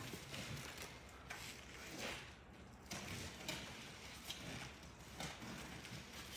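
Faint scuffing and soft knocks of cardboard boxes being shifted by hand.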